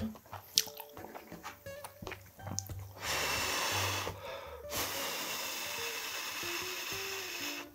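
A person blowing on a spoonful of hot fried rice to cool it: two long breaths about three seconds in, the second lasting nearly three seconds. Background music plays throughout.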